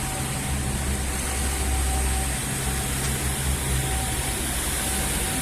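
City street noise with a motor vehicle engine running close by: a steady low hum, strongest in the first half, over a general traffic hiss and a faint steady whine.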